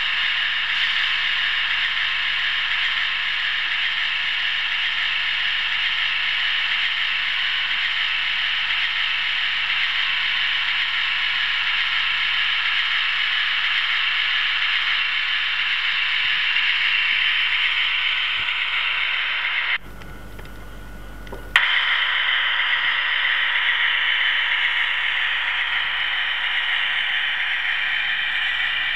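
OO-gauge model train running along its track with the camera riding on it: a steady, close mechanical rattle of wheels on rail and drive gearing. About two-thirds of the way through the sound drops out abruptly for a second and a half, then returns with a click.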